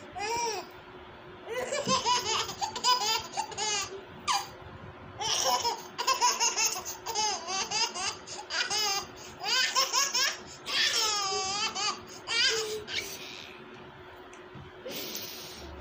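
A baby laughing hard in repeated bouts of high-pitched laughter, with short pauses between bouts; the laughter dies away a couple of seconds before the end, and a brief hiss follows near the end.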